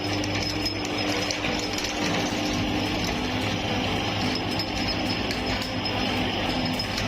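Electric meat grinder running steadily with a continuous motor hum, grinding coconut candy.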